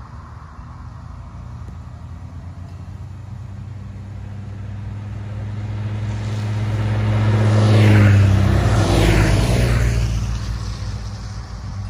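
A small group of motorcycles approaching and passing close by, their engines building to loudest about eight seconds in, two machines sweeping past within about a second of each other, then fading away.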